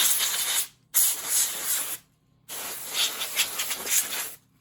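Compressed air hissing in three bursts, the last and longest about two seconds, blowing dust out of the inside of a laptop.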